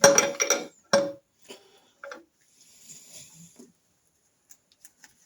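Steel hand tools clicking and clinking on the sprocket puller as its centre bolt is worked against the crankshaft: a quick run of ringing metallic clicks at the start, another sharp clink about a second in, then a few faint knocks and scrapes. The bolt is tight, with the engine sprocket still stuck fast on the crankshaft.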